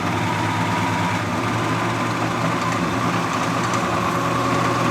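Clausing Model 2275 20-inch variable-speed drill press running under no load: the 1½ hp three-phase motor and spindle drive give a steady hum with a high whine over it, running real smooth.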